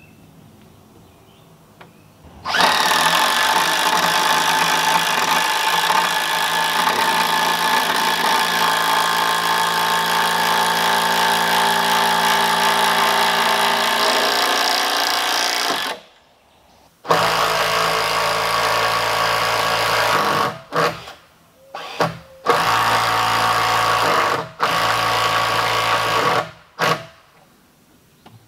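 Cordless drill running under load into a log rafter. One long run of about thirteen seconds, its pitch slowly sinking as the bit or fastener goes deeper, then a string of shorter bursts, several seconds long down to a fraction of a second.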